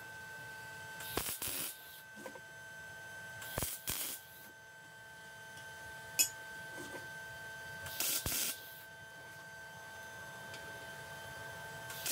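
Compressed air from an air blow gun, let off in three short hissing bursts of about half a second each, a few seconds apart, over a faint steady hum. A single sharp click comes about six seconds in.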